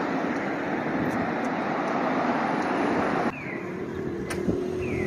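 Road traffic on a busy multi-lane road: a steady rush of cars and tyres. It cuts off abruptly about three seconds in to quieter street sound, with a faint low hum and a couple of faint short chirps.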